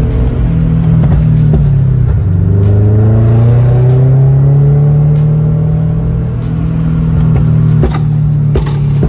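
Toyota 86 / Scion FR-S / Subaru BRZ 2.0-litre flat-four engine heard from inside the cabin while driving. The engine note dips, then rises steadily as the car accelerates and settles to a steady cruise, with a few sharp clicks near the end.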